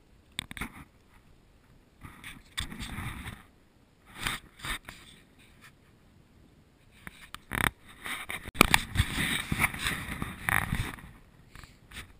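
Close handling noise as a caught bluegill is taken off the hook by hand: irregular rustling and scraping with sharp clicks, in several bursts, busiest in the second half.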